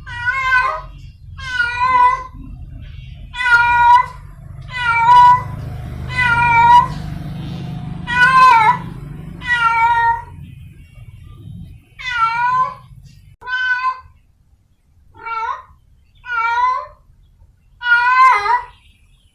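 Domestic village cat in heat yowling for a mate: a long series of loud, wavering meows, one roughly every second or two.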